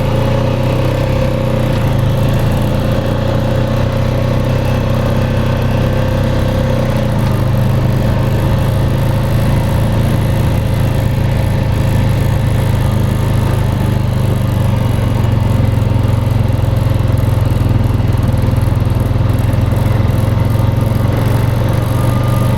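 Small off-road vehicle's engine running steadily as it drives along, its low hum shifting slightly about seven seconds in.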